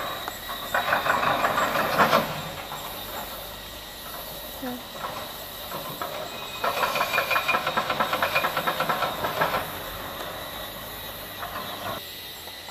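Crumpled paper exercise books rustling and crackling as hands leaf through and unfold them, in two spells: a short one about a second in and a longer one of about three seconds past the middle.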